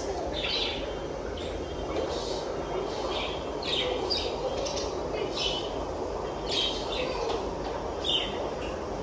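Small birds chirping, short high calls repeating about once a second, some in quick pairs, over a steady low background noise.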